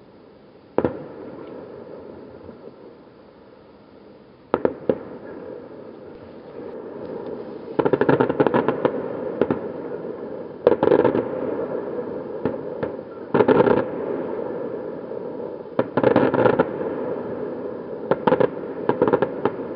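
Aerial fireworks going off: a single sharp bang about a second in and another near five seconds, then, from about eight seconds on, repeated clusters of rapid bangs and crackling as shells burst.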